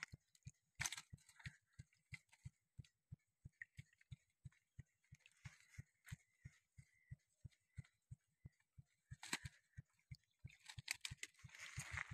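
Near silence, with a faint low thud repeating evenly about three times a second and a few short rustles now and then.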